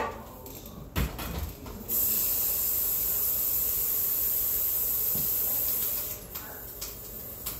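A thump about a second in, then a loud, steady, high-pitched hiss that starts abruptly about two seconds in and drops off sharply about four seconds later, leaving a fainter hiss.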